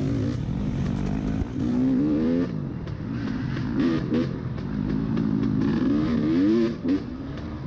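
Dirt bike engine heard from the rider's own bike, revving up and down several times as the throttle is worked over rough ground, easing off near the end.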